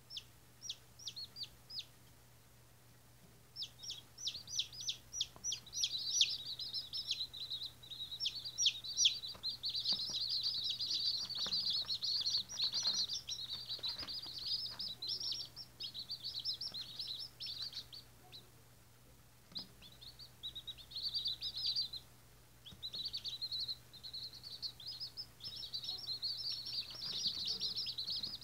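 Several day-old White Australorp chicks peeping: rapid, overlapping high-pitched cheeps from more than one bird, with short lulls about two seconds in and again around two-thirds of the way through.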